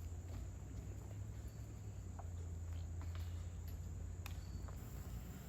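Insects chirring steadily at a high pitch, over a low steady rumble, with a few faint clicks.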